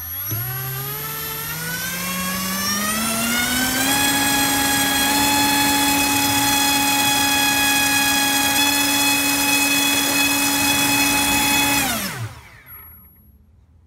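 Brushless motor spinning a Dalprop 5045 three-blade propeller on a thrust stand. The whine rises in pitch over the first four seconds as the throttle is opened, holds steady for about eight seconds under a load of about 22 amps, then falls away quickly and stops about twelve seconds in.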